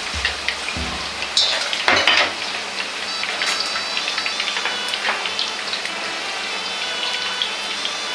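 Shredded potato pressed into a wire strainer, deep-frying in a wok of hot oil with a steady crackling sizzle. A metal ladle clatters against the strainer and wok a couple of times, about one and a half to two seconds in.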